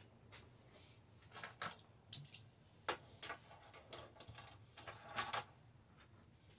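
Scattered light clinks, knocks and brief rustles of kitchen containers and utensils being handled on a counter.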